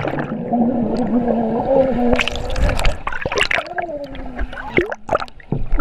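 Underwater sound in a swimming pool: bubbles gurgling and short muffled splashes, with a muffled voice held on a wavering pitch underwater, twice.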